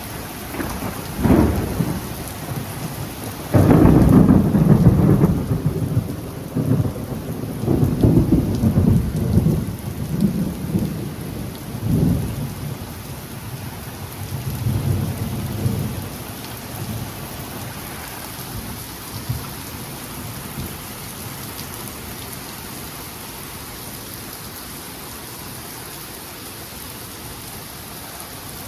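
Close thunder from a severe thunderstorm: a sharp crack about a second in, then a loud rumble that starts about three and a half seconds in, rolls on in waves and dies away after about a quarter of a minute. Steady rain runs underneath throughout.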